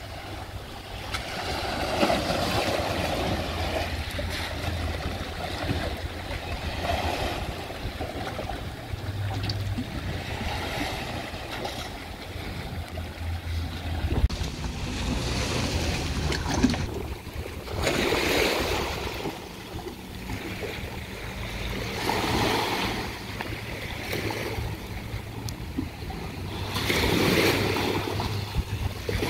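Wind buffeting the microphone over small waves washing at a boat ramp, swelling in several gusts.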